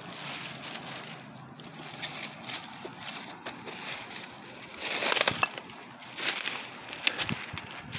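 Footsteps crunching through dry fallen leaves and cut brush, with a few louder crunches in the second half; gentle water lapping at the bank before that.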